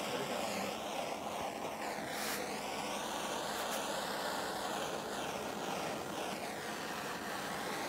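Steady rushing blast from a heat tool swept over freshly poured epoxy to pop surface bubbles, with a hiss that wavers as the tool moves.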